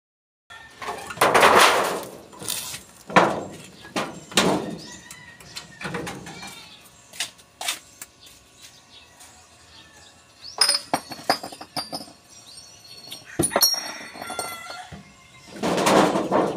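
A small shop's window shutter and hinged awning panel being opened: several scraping, rattling pushes of about a second each with knocks and clatters in between, the last as the awning panel is pushed up near the end.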